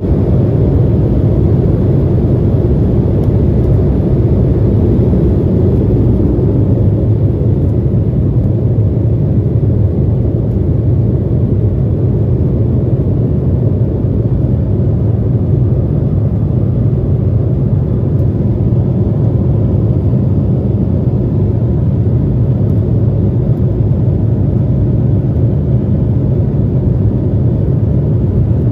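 Embraer 170 airliner taking off, heard from inside the cabin: a loud, steady low rumble of its CF34 turbofan engines and rushing air, unchanging throughout.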